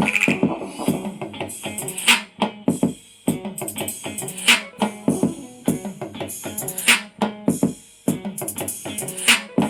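Music with drums and guitar playing through a Zealot S32 Max Bluetooth speaker, with a steady beat and a strong hit about every two and a half seconds.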